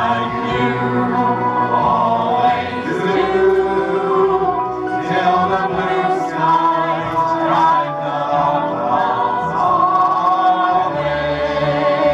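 A 1940s-style vocal group of two men and two women singing a wartime song together into microphones, amplified through PA loudspeakers.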